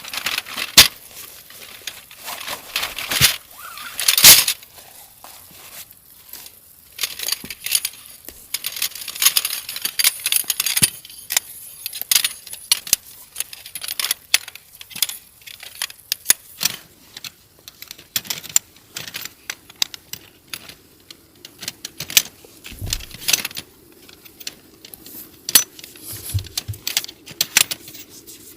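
Irregular clinking and rattling of small hard objects being handled, in quick short clicks, with a faint steady hum coming in a little past halfway.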